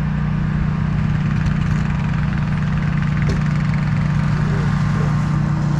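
A boat motor running steadily with an even, low hum.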